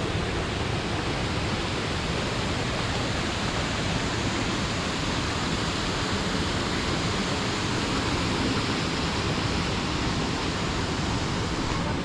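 Steady rushing of water from a small waterfall pouring over rocks into a pool.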